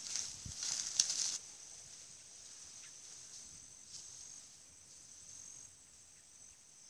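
Faint, steady, high-pitched trill of insects in the field. A rustling noise in the first second and a half stops suddenly.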